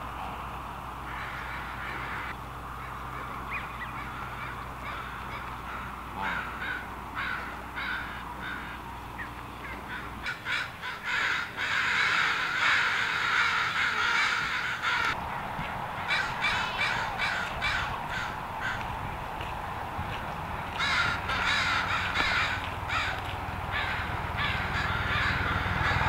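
Flock of Canada geese honking. A few scattered honks at first, then bursts of many overlapping calls, the loudest about halfway through and another later on.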